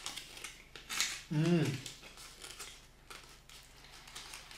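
Foil wrapper crinkling and crackling in the fingers as a small chocolate nougat Easter egg is unwrapped, with a brief vocal sound about a second and a half in.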